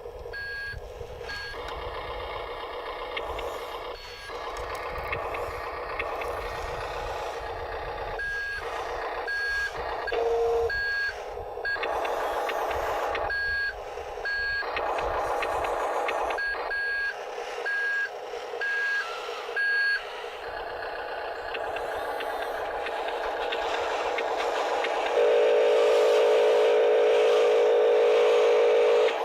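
Radio-controlled toy truck or wheel loader running with a steady drone, its reversing beeper sounding short high beeps about once a second through much of the time. Over the last few seconds a louder, steady buzzing tone comes in.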